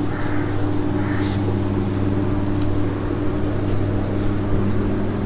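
Steady low electrical hum, with soft rubbing of a duster wiping a whiteboard, most noticeable in the first second or so.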